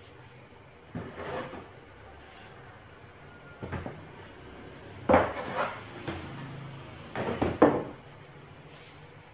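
Wooden boards of a seat frame being lifted out and handled, knocking and clattering against each other and the frame in several bursts, loudest about five and seven and a half seconds in.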